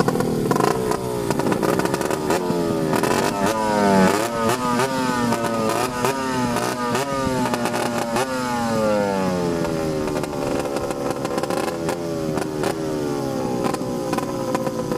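Engines of two small racing boats running hard in a head-to-head race, their pitch rising and falling in repeated sweeps, quickest from about two to nine seconds in, then in slower swells.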